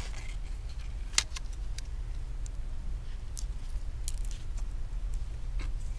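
Small, sharp metallic clicks and taps from a thin metal display back plate being handled and fitted onto an iPhone 6s Plus replacement screen, the sharpest about a second in, over a steady low hum.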